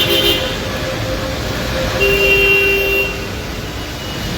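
City road traffic in the rain with car horns: a short toot right at the start, then one horn held for about a second, starting about two seconds in, over the steady wash of traffic and rain.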